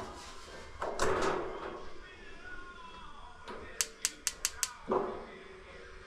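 Piezo igniter on a gas wall heater clicking five times in quick succession, about five clicks a second, as the pilot is tried with air still in the gas line, so it does not catch. Short rustling noises come about a second in and again just after the clicks.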